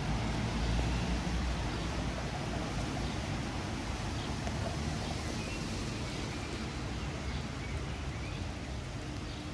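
Steady outdoor street ambience on a rainy day: an even hiss of rain over a low traffic rumble, with no distinct event standing out.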